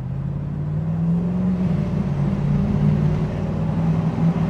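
The 4.7-litre V8 of a 2002 Toyota Tundra with an MBRP resonator-back exhaust accelerates hard, heard from the cab with the windows down. The engine note climbs, drops once a little under halfway as the automatic transmission shifts out of first gear, then climbs again.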